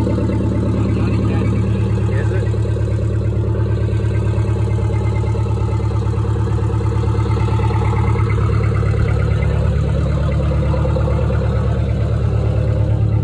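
1972 GMC Astro cabover truck's diesel engine idling steadily.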